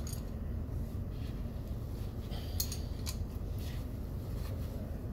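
Hand tools working the tappet adjuster locknut on a Volvo B7 bus diesel engine: a few light metallic clicks of a ratchet and spanner, bunched about two and a half to three and a half seconds in, over a steady low hum.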